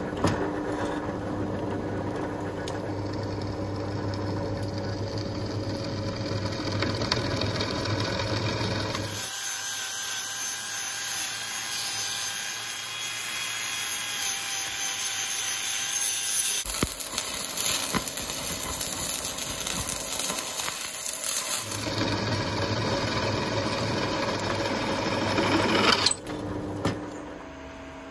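Benchtop drill press running and boring through a small steel plate. About nine seconds in the sound changes to an angle grinder working the plate, higher-pitched, and it shifts several more times before dropping off sharply near the end.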